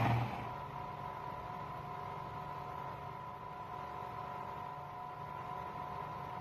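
Food processor motor running, cutting off sharply about a third of a second in. It is followed by a steady low hum with a faint high whine.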